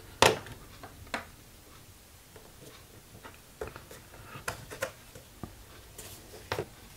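Light plastic clicks and taps of a 3D-printed clamp pad being handled and slid onto the plastic jaw of an Irwin Quick-Grip bar clamp. A sharp click comes just after the start and another about a second in, followed by fainter scattered taps.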